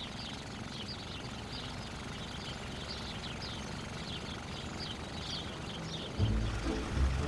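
Background birdsong: many short, high chirps repeating over a soft steady hiss. A louder, low sound comes in about six seconds in.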